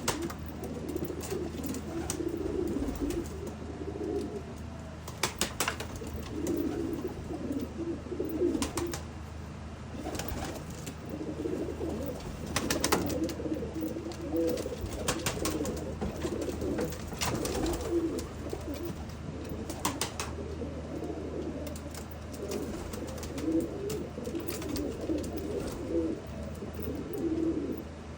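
High flyer pigeons cooing continuously, with sharp clicks or taps every few seconds.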